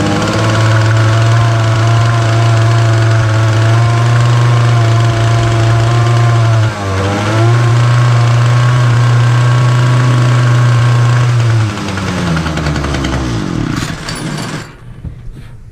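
Titan petrol multi-tool's small two-stroke engine running at steady, fairly high revs. It stumbles briefly about seven seconds in, then slows down and stops near the end. It is not getting to full revs: it still isn't running right.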